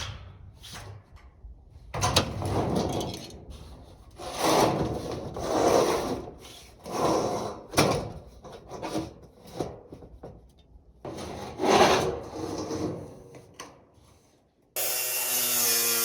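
Irregular scraping and rubbing strokes against wood, seven or eight of them with pauses between. Near the end they give way suddenly to a steady motor hum.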